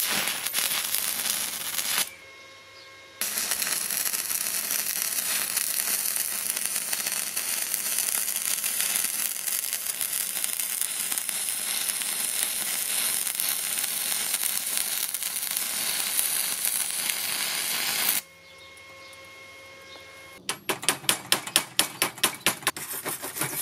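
Stick-welding arc from a Parkside PISG 80 A2 inverter welder, 2.0 mm electrode on 3 mm steel at 70 A, crackling and hissing steadily. The arc drops out about two seconds in, restrikes a second later, and burns on for about fifteen seconds before stopping. Near the end a chipping hammer knocks the slag off the fresh weld bead in quick, sharp taps, about four a second.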